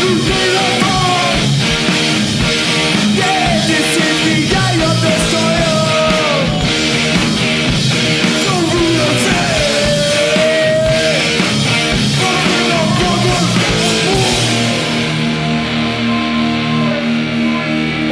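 Punk band playing live and loud: distorted electric guitars, bass and drums. About fifteen seconds in the cymbals fall away and the guitars hold ringing chords.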